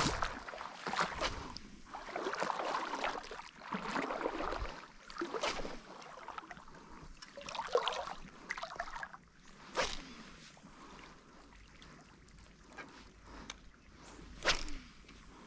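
Wading through shallow seawater, feet splashing and swishing through the water in irregular surges for the first nine seconds or so. After that it goes quieter, with one sharp click about ten seconds in and another near the end.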